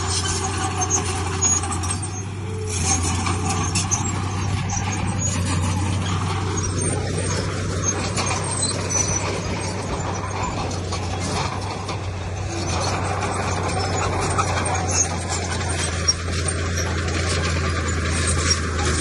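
Heavy diesel earthmoving machinery working: a steady low engine drone with continuous clanking and scraping of metal and stone.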